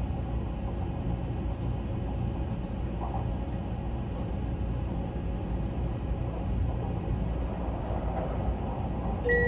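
Odakyu Romancecar limited-express train running, a steady low rumble heard from inside the carriage. A chime starts right at the end.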